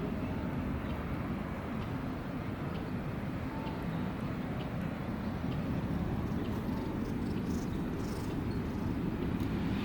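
A cat eating, with faint crunching clicks in the later part, over a steady low rumble.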